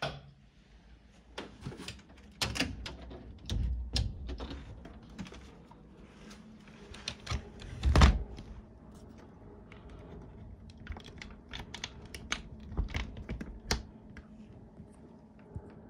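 Old wooden doors being handled: sharp clicks and wooden knocks, with a solid thud about eight seconds in as a sliding wooden door is pulled shut against its frame. Then a run of small metallic clicks and rattles as a brass latch on the door frame is worked.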